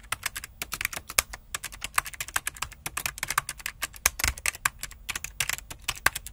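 Keyboard typing sound effect: rapid, irregular keystroke clicks, several a second, timed to text appearing letter by letter on screen, over a faint low hum.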